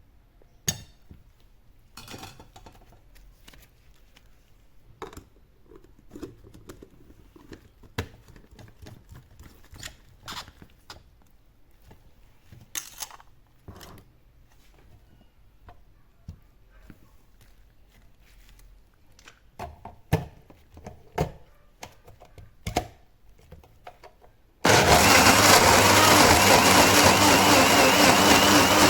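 Scattered knocks and clinks of kitchen utensils and containers, then near the end an electric blender switches on suddenly and runs steadily at full speed.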